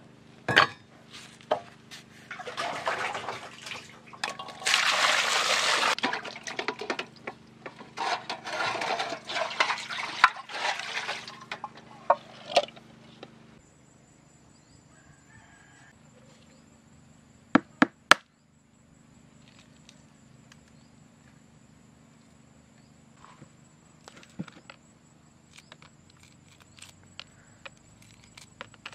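Water splashing into a metal pot holding two goose eggs, in noisy stretches through the first dozen seconds. Later come a few sharp clicks and small taps as the boiled eggshell is cracked.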